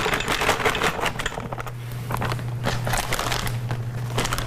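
Meatballs tumbling out of a plastic bag into a Pampered Chef Quick Cooker's pot, a dense run of knocks and clatter with the bag crinkling, over a low steady hum.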